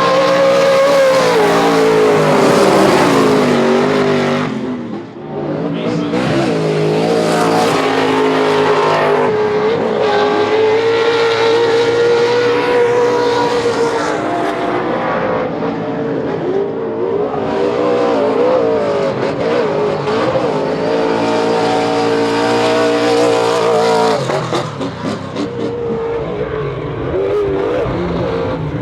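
800 hp Kroyer Racing V8 engine of a Pro 2 short-course race truck at hard throttle, the revs rising and falling as it drives. There is a brief lift off the throttle about five seconds in, and the engine eases off near the end.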